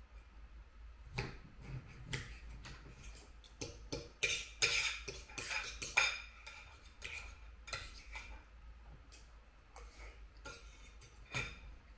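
Knife and fork clinking and scraping on a dinner plate while cutting food, a run of short clicks and scrapes that is busiest and loudest about four to six seconds in.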